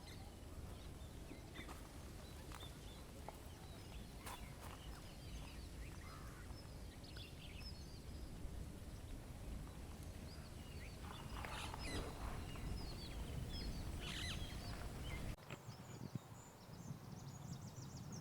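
Outdoor ambience of birds calling in short chirps over a steady low rumble of wind. About fifteen seconds in it cuts to a quieter stretch with rapid high-pitched bird twittering.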